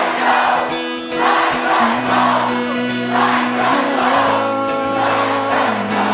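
Background music from the song's intro: held choir-like chords that shift pitch a couple of times, with crowd noise underneath.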